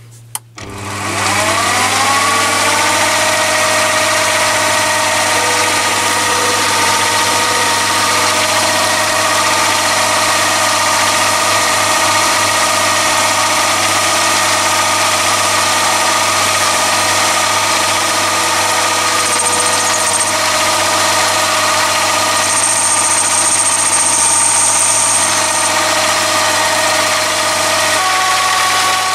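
Chinese mini lathe starting up, its motor and spindle spinning up over the first couple of seconds and then running steadily, while a carbide-insert boring bar cuts an undercut in a mild steel bore. A thin high whine comes and goes twice in the second half.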